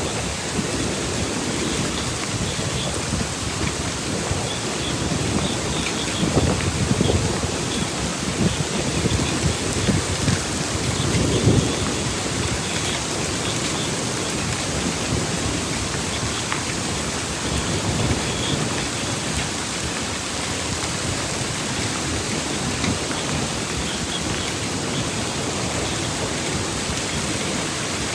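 Heavy rain falling steadily during a thunderstorm, with low rumbles swelling about six and eleven seconds in.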